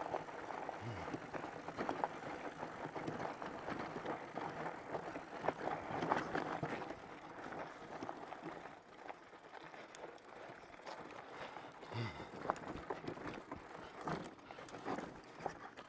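Bikonit MD 750 fat-tire e-bike ridden over a rough dirt trail: an uneven rush of tyre and trail noise with many small clicks and knocks.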